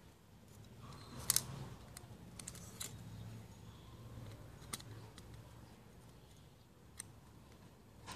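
Hard plastic parts of a toy revolver being handled and clicked together during assembly. There is a sharp double click a little over a second in, a few lighter clicks around three seconds, and single clicks near five and seven seconds, over a low hum.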